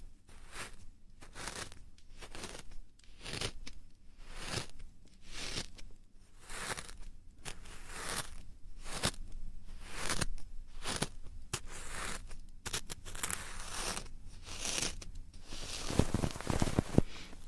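Hands rubbing and scratching over an ASMR microphone in ear-rubbing strokes, about two a second, turning heavier with low thumps near the end.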